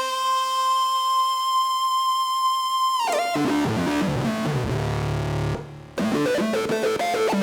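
Synthesizer presets from a JD-800 emulation playing: a sustained bright synth note for about three seconds, then a switch to a different patch of fast, plucked, guitar-like notes over a low bass. The sound drops out briefly near the end before a rhythmic plucked pattern comes back.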